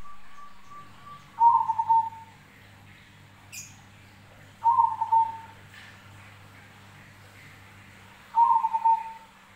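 Zebra dove (perkutut) cooing: three phrases about three and a half seconds apart, each a quick run of pulsing notes that slides slightly down in pitch. A faint steady low hum runs underneath.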